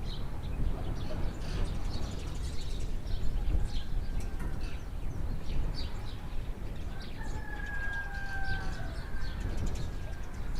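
Village yard ambience: a rooster crows once, a long drawn-out call about seven seconds in, over scattered chirps of small birds and a steady low rumble.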